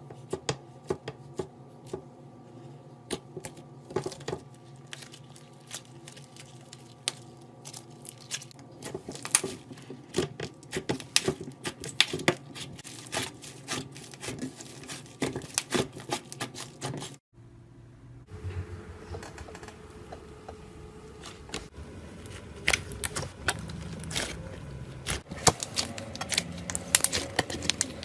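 Slime being squeezed and poked by hand, giving a dense run of small irregular clicks and pops. The sound drops out briefly about two-thirds of the way through, then the clicking resumes.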